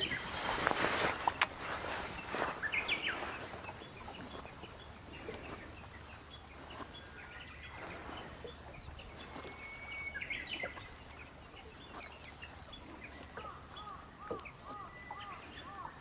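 Birds singing along a wooded lakeshore, among them a Japanese bush warbler: scattered short whistles, a held whistle around the middle and a run of quick repeated notes near the end. In the first second or so, the swish of a fishing cast ends in a sharp click.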